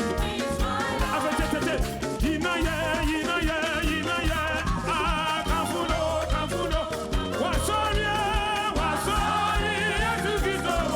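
Upbeat Ghanaian gospel praise music: a steady drum and bass beat under wavering, held melody lines, with singing.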